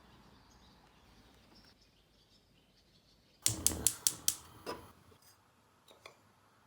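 A quick run of about six sharp clicks and knocks of hard objects a little past halfway, another louder knock just after, and a few faint ticks near the end, over a faint steady hiss.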